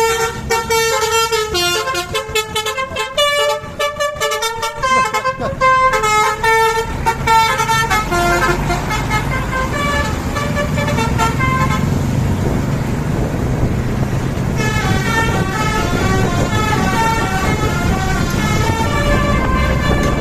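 Bus telolet basuri musical horn playing quick runs of stepped notes, with the bus engine running underneath. The tunes drop out about eight seconds in, leaving mostly engine, and start again near fifteen seconds in.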